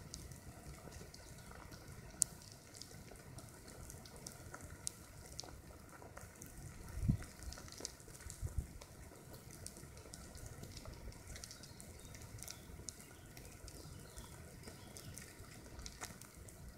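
Fine crackling sizzle of a mass of wood ants crawling over the dry needles of their mound, a dense patter of tiny clicks. A few low thumps come about halfway through.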